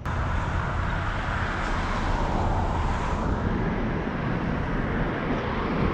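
Steady low outdoor rumble, with a faint higher hiss that swells and fades about halfway through.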